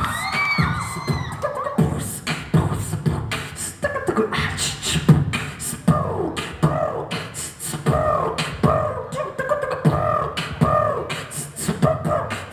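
Live beatboxing amplified through a handheld microphone: vocal kick and snare strokes in a steady rhythm. About halfway in, bending pitched vocal tones are layered over the beat.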